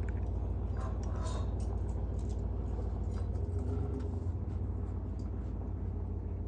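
Steady low rumble, with a few faint clicks in the first two seconds.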